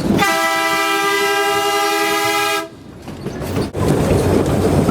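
Electric interurban railcar's air horn sounding one long, steady chord blast of about two and a half seconds that cuts off abruptly. After a short lull, a steady rumbling noise returns near the end.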